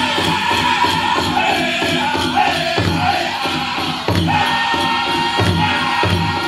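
Powwow drum group singing a chicken dance song over steady beats on a large drum, with a long held sung note in the second half. Dancers' bells jingle along with the beat.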